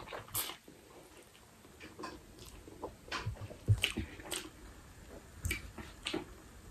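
A person slurping a mouthful of Buldak ramen noodles and then chewing, with scattered short wet mouth smacks and clicks.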